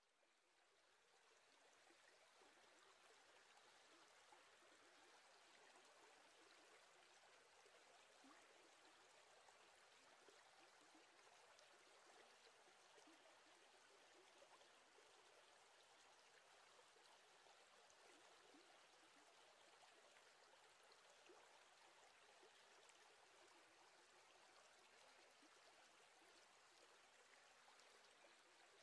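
Near silence: a faint steady hiss that fades in at the start and holds.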